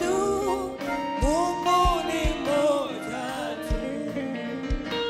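Swahili worship song: a singing voice over a live band, with held instrument chords and low drum beats.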